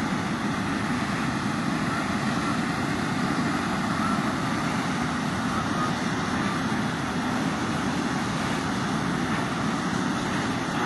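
Steady, even roaring noise of hot-air balloons being inflated with hot air, with no rhythm or break.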